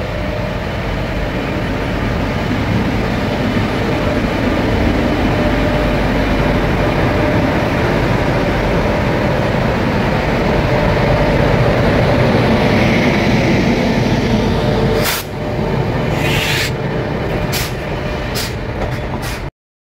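WAG-9 electric freight locomotive heard close up: a loud, steady running noise with a faint constant hum. A few sharp clanks come near the end, and then the sound cuts off abruptly.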